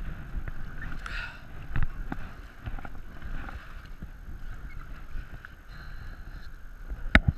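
Paddle strokes splashing in the river beside an inflatable kayak, over steady water noise and a low wind rumble on the microphone; a couple of sharp knocks come near the end.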